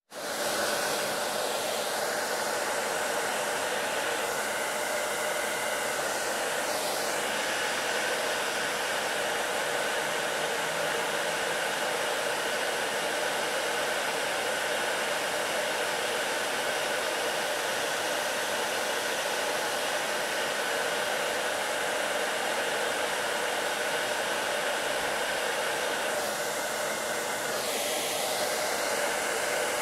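Electric heat gun blowing hot air steadily onto a car alternator's front housing and pulley.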